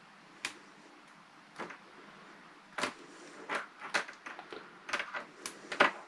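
Grey ribbon cable being handled and its thin wires peeled apart by hand: irregular small clicks and crackles of plastic insulation, more frequent in the second half, the loudest just before the end.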